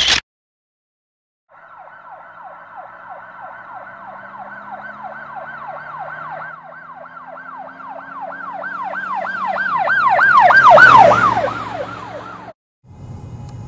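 An emergency vehicle's siren on a fast yelp, sweeping up and down about three times a second over a low engine rumble. It grows louder as the vehicle approaches, is loudest near the end, and drops slightly in pitch as it passes, then cuts off abruptly. A faint traffic hum follows.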